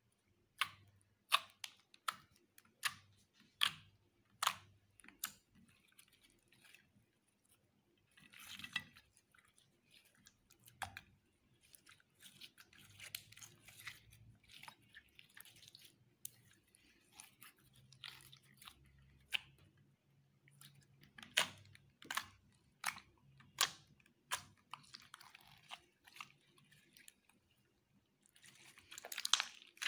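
Slime being mixed and squished by hand: sharp clicking pops, about one or two a second, between stretches of soft squishing.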